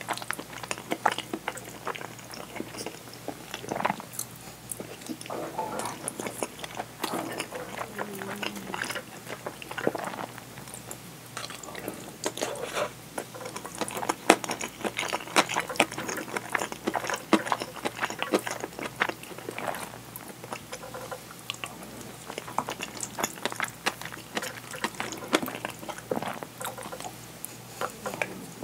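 Close-miked eating of curry and rice: wet chewing and mouth sounds with many small clicks, and a wooden spoon scooping against a ceramic bowl.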